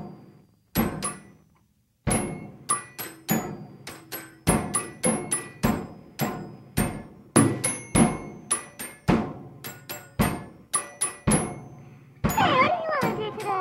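Percussion from a live soundtrack: hard objects struck over and over in an uneven rhythm, about two or three strikes a second, each knock ringing briefly at the same high pitches. The strikes pause briefly about a second in. Near the end, a wavering, sliding pitched sound comes in.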